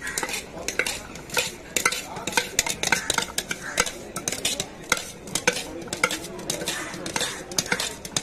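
A metal spoon stirring inside a steel tumbler, clinking and scraping against its sides in quick, irregular strokes, several clinks a second.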